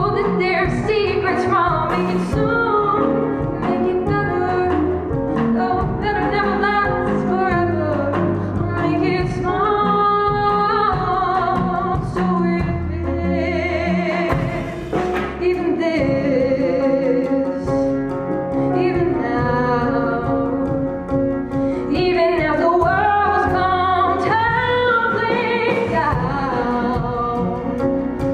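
A solo female voice singing a Broadway musical-theatre ballad, with vibrato on the held notes, over instrumental accompaniment.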